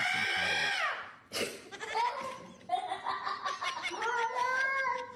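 Domestic cat yowling in long, drawn-out wavering calls at a dog on the other side of a glass door; the first call falls away about a second in, a short sharp knock follows, and a second long yowl runs on.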